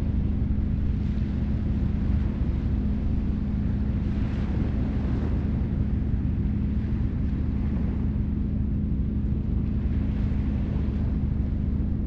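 The 'Starboard' noise-masking sound from the Bose Sleepbuds 2 sound library: a steady low droning hum under a rushing hiss, swelling gently twice, about four and ten seconds in.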